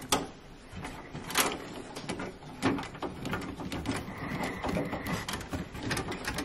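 A screwdriver turning out a securing screw on a Worcester 25i combi boiler's hydroblock bracket: metal scraping and rattling of the tool in the screw, with a few sharp clicks.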